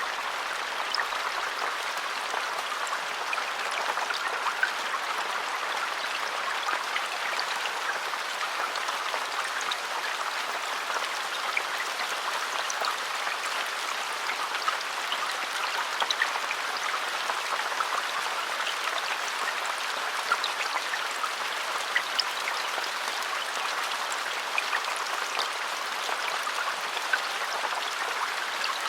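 Steady rain falling in a forest: an even hiss of rainfall with many scattered drops pattering.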